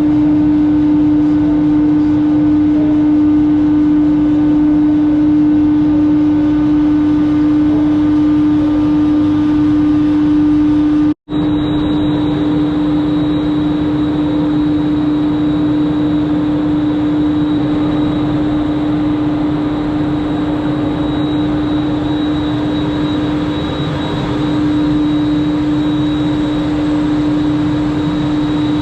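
Aerial ropeway drive machinery running in its machine room: a loud, steady, even hum with a strong single tone and fainter higher tones over a mechanical rumble, cutting out for an instant about eleven seconds in.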